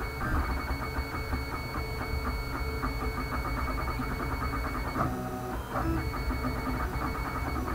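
Stepper motors of a homemade wooden-frame 3D printer whining in steady tones as the print head moves, over a constant low hum. The tones break off briefly about five seconds in and return at new pitches as the next move starts.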